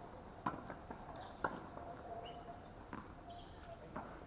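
Tennis balls struck back and forth with rackets in a volley-to-volley rally: four sharp hits, about one a second.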